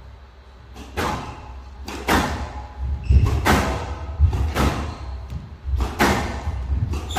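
Squash rally: the ball hit sharply by the rackets and off the walls about once a second, each hit echoing in the hall, over the players' thudding footsteps.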